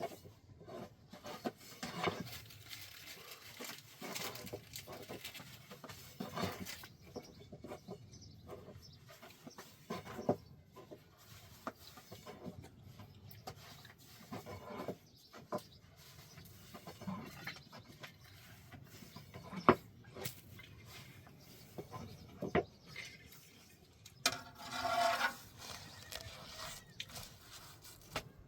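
Farmyard sounds: chickens clucking among scattered light knocks and taps, with a longer pitched animal call near the end.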